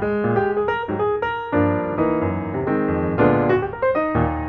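Background piano music: a melody over chords, with notes changing every fraction of a second.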